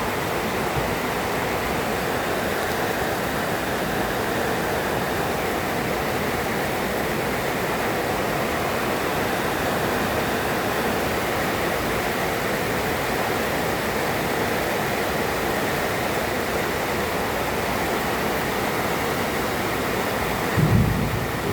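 Heavy rain pouring down steadily in a thunderstorm. Near the end, a brief loud low rumble.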